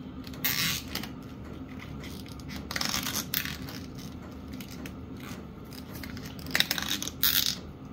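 Nylon zip ties being handled and pulled tight: about four short rasping zips, one about half a second in, one around three seconds, and two close together near the end, over a low steady hum.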